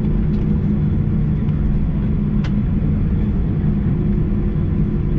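Airbus A319 cabin noise while the airliner rolls on the ground after landing: a steady low rumble of the engines and airframe, with a faint click about two and a half seconds in.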